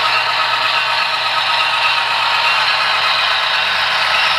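Passenger train rolling past: a steady rattling clatter of wheels on the track.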